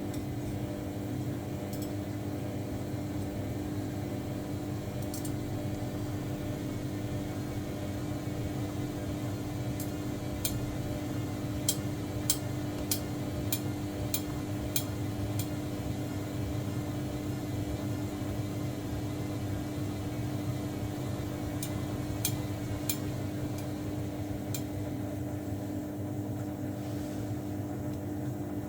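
Washing machine running with a steady motor hum, and a run of sharp clicks about two a second near the middle, a few more later on.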